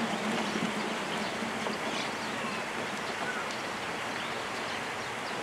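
Steady outdoor background noise, an even hiss with faint short chirps now and then.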